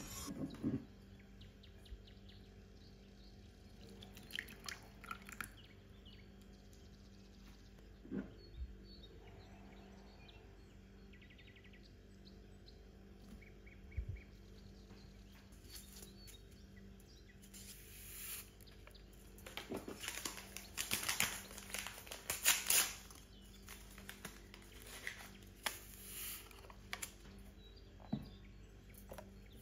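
Quiet kitchen handling sounds as sugar and other ingredients are tipped from small ceramic ramekins into a glass mixing bowl: scattered taps and clinks against the glass, with a cluster of louder sliding and scraping noises past the middle, over a faint steady hum.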